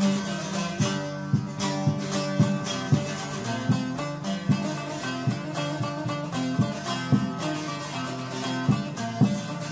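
Instrumental break in a Kurdish folk song: a plucked string instrument plays a melody with regular plucked strokes, without singing.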